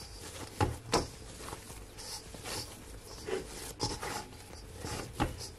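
Hand kneading a soft flour-and-cornmeal dough in a stainless steel bowl: rubbing, scraping and squishing, with a few short knocks.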